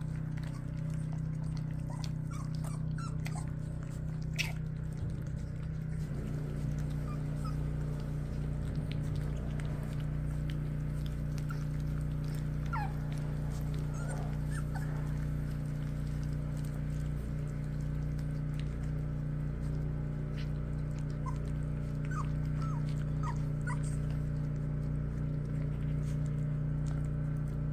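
Four-week-old cockapoo puppies eating raw ground beef from a tray: soft chewing and smacking, with a few brief high whimpers now and then, over a steady low hum.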